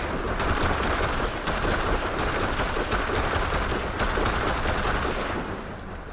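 Assault rifle firing long bursts of automatic fire into the air, with a few short breaks. The shooting stops about five seconds in and its echo dies away.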